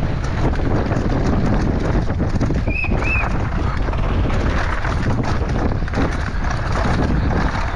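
Wind rushing over the microphone while a downhill mountain bike clatters and rattles over rough ground at speed. Two short high squeaks come about three seconds in.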